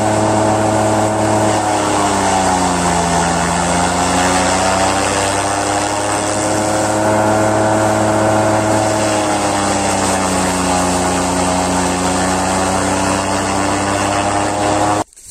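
Massey Ferguson 65 tractor engine driving a forage chopper as napier grass is fed in. The engine note drops in pitch twice, about two seconds in and again near ten seconds, as it bogs under the load of grass, then picks back up. The sound cuts off abruptly near the end.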